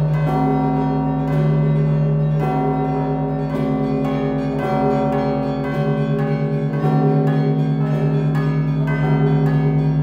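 Russian Orthodox bell-ringing (zvon) of the Danilov Monastery bells. Large stationary bronze bells are struck by their clappers about once a second, with smaller bells ringing quick strokes in between, over a low tone that rings on between strikes.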